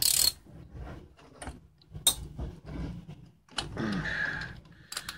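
Ratchet and long socket extension working a bolt on a turbocharger, with scattered sharp clicks and metal knocks as the bolt is broken loose.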